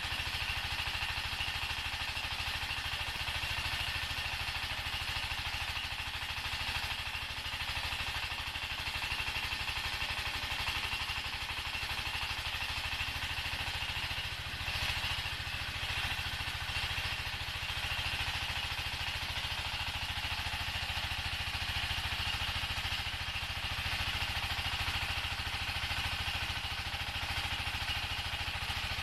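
Floating fish-feed pellet extruder running steadily, a continuous mechanical drone with a low hum and a higher hiss that stays even throughout.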